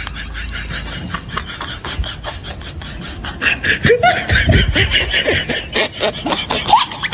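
Budgerigars chattering: a fast run of clicks and warbling that grows louder about halfway through, with short squeaky chirps near the end.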